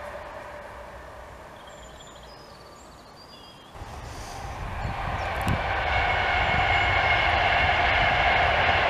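A London Northwestern Class 350 electric train fading into the distance, with a few short bird chirps. About four seconds in, a Virgin West Coast Class 390 Pendolino electric train approaches and grows louder: a steady rushing with a high whine.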